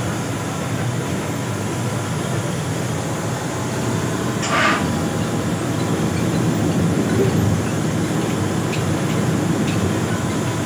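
Steady engine and tyre noise of a vehicle driving at road speed, heard from inside the cabin as a low rumble, with a brief hiss about four and a half seconds in.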